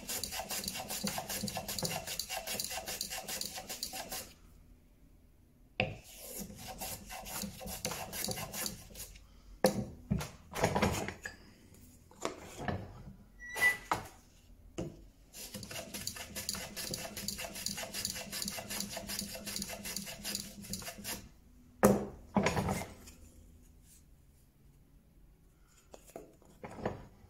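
Hand plane shaving the end grain of a small piece of wood, rasping in three long bouts of quick strokes with short pauses between. A few sharp knocks come in the pauses, the loudest about two-thirds of the way through.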